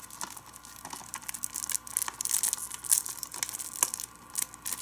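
Plastic shrink-wrap on a Blu-ray case crinkling and crackling in irregular bursts as fingers pick and pull at a corner to tear it open.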